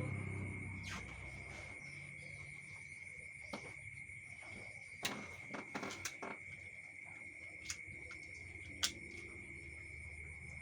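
Scattered sharp clicks and taps, a cluster of several about halfway through, over a steady high-pitched tone.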